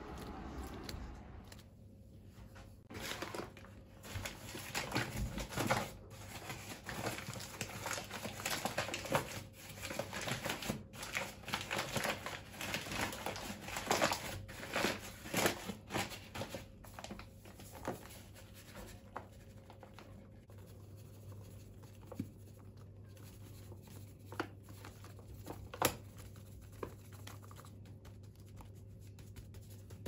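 Paper flour bag being handled, crinkling and tearing as it is opened, in a dense run for about fifteen seconds, then quieter with a few scattered clicks and taps.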